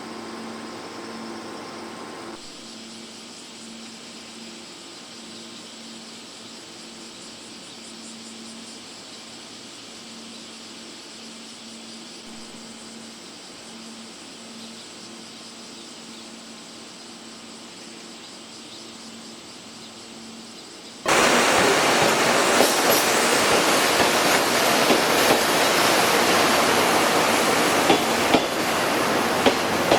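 Passenger coach of a locomotive-hauled train: a quiet, steady hum with a faint pulsing low tone, then, about two-thirds of the way in, a sudden loud rush of running noise from the coach with sharp clicks of the wheels over rail joints.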